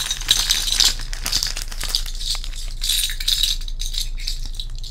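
Metal pin-back buttons clinking and rattling together inside a clear plastic bag, the bag crinkling as they are handled and pulled out, in a busy run of small clicks.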